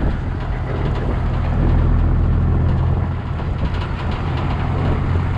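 Toyota Landcruiser 79 Series ute cruising along, heard from inside the cab: a steady low engine drone under road and wind noise.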